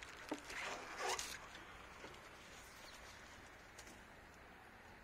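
A few brief rustling noises in the first second and a half, then a quiet outdoor background with a few faint bird chirps.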